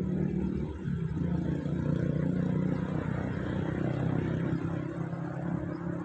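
Steady low engine rumble with a constant hum, running evenly throughout.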